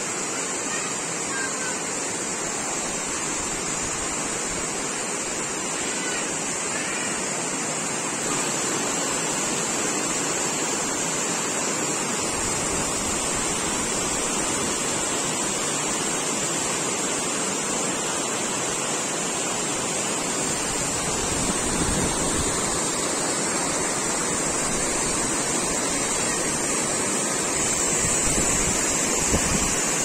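Steady rushing of flowing water. A deeper low rumble joins about twelve seconds in and swells briefly twice towards the end.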